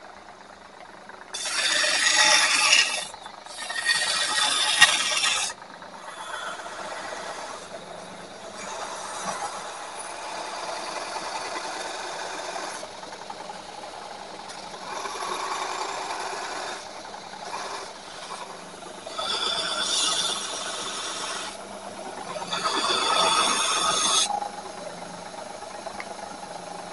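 Abrasive work on a spring-steel knife blank: a rasping scrape of metal being taken off the blade. It comes in two loud passes early, quieter scraping in the middle, then two more loud passes near the end.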